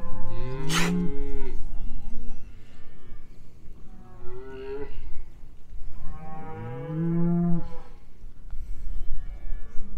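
Cows mooing three times: a long moo about a second in and another about six seconds in, each rising then falling in pitch, with a shorter call between them.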